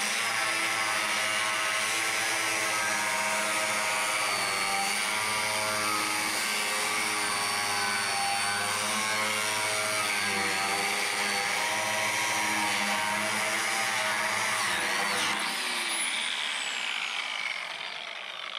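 Large DeWalt angle grinder with a cutting wheel cutting through the thick steel of a propane tank, its motor running steadily under load with the pitch wavering slightly as it bites. About 15 seconds in it is switched off and winds down with a falling whine.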